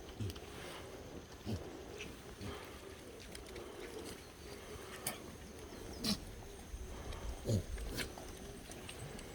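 Black goats in a pen: scattered sharp clicks and knocks, and a few short low animal sounds falling in pitch, over a steady low hum.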